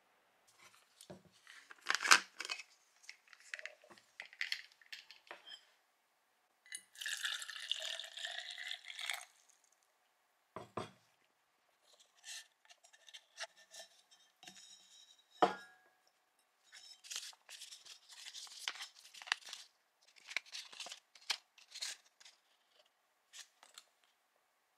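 Handling noise from a stainless steel vacuum bottle and its black plastic screw-cap parts: scattered clicks, taps and knocks, with a stretch of rustling about seven seconds in.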